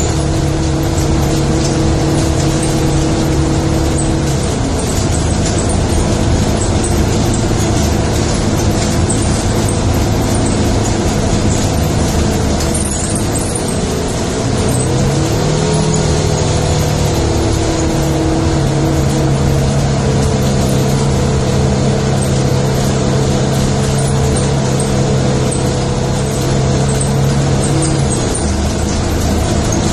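Engine and road noise heard from inside a vehicle: a steady loud rumble with a low hum that shifts in pitch a few times, rising about halfway through.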